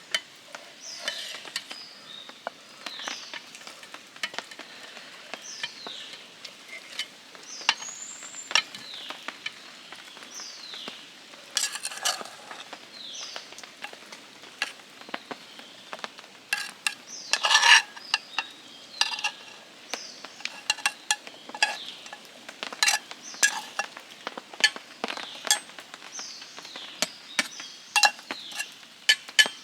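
Campfire crackling and sizzling with scattered sharp pops and clicks, and a short falling chirp repeated about once a second.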